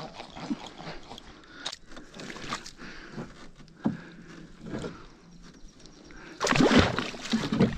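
Water splashing and dripping, with knocks against the canoe hull, as a carp shot with a bowfishing arrow is hauled up alongside on the arrow, tangled in weeds. The loudest splashing comes as a burst near the end.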